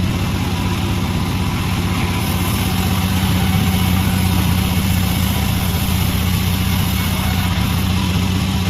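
Homemade sawmill's engine running steadily, a low even hum under a constant hiss.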